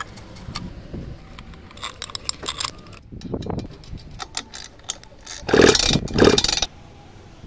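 Hand tools on a scooter engine's metal casings: sharp metallic clicks and rattles from a screwdriver and a ratchet wrench, ending in a loud, dense run of clicking from about five and a half to nearly seven seconds in.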